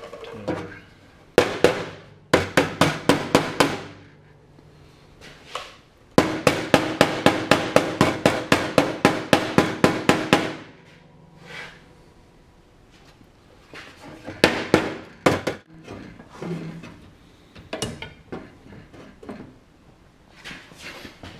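Hammer blows on the sheet-steel inner fender panel of a 1966 Plymouth Satellite, coming in quick runs of about five strikes a second, the longest lasting about four seconds, with a few scattered blows later on. The replacement panel is being tapped down into place along its seam.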